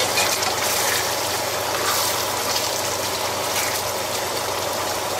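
Chicken balls in sweet-and-sour sauce sizzling in a non-stick frying pan as they are stirred with a wooden spatula: a steady hiss.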